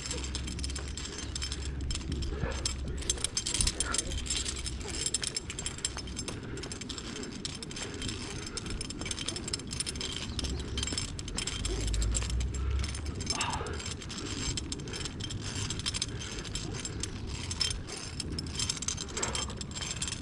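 Metal tree-climbing hardware (carabiners and a ZigZag mechanical prusik) jangling and clinking with irregular clicks as a climber ascends a single static rope.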